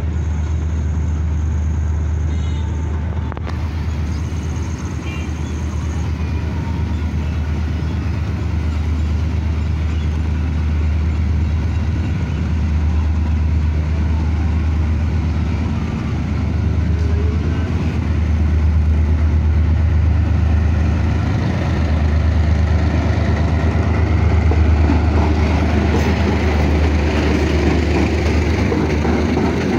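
Diesel locomotive hauling a freight train toward a level crossing: a steady low engine rumble that grows louder over the last several seconds as it draws up alongside.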